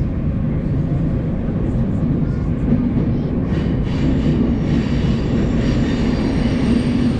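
Steady rumble of a moving train.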